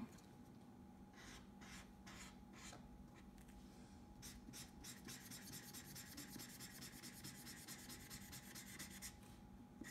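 Faint scratching of a felt-tip marker colouring in on paper. Scattered single strokes come first, then a run of quick back-and-forth strokes through the second half, which stops about a second before the end.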